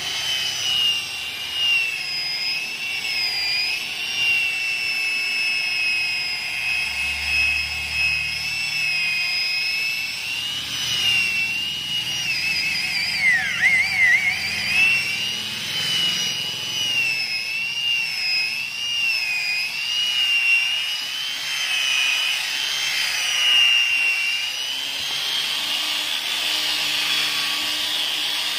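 Electric rotary car polisher whining steadily as its pad works the paintwork. The pitch wavers with pressure and dips sharply for a moment about halfway through, as the motor is loaded.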